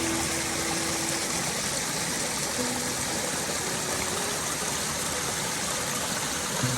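Backyard koi pond waterfalls: a steady rush of water spilling over rock.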